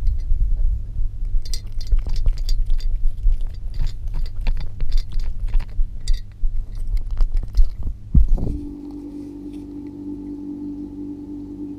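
A cat's face and fur rubbing and bumping against a glass vase with the microphone inside, a loud low rumble with many small clicks and knocks against the glass. About eight and a half seconds in, the rubbing stops and a steady hum takes over.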